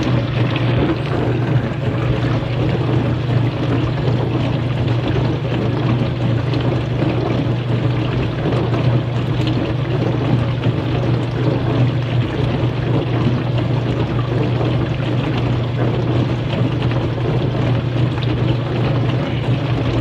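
Kenmore dishwasher running a clean cycle: a steady motor hum under the rush of water spraying inside the tub.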